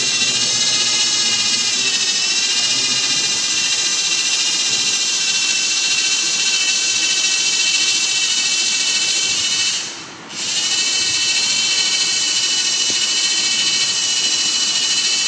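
A small electric device in the shuttle model's launch base runs with a loud, steady, high whine full of even overtones, rising slightly in pitch as it starts. It cuts out for a moment about ten seconds in, then starts again and runs on.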